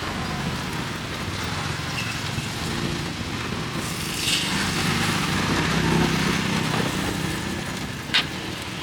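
Street traffic with a motorbike engine running past, its hum swelling about two-thirds of the way through, over a steady background noise, with a couple of sharp clicks.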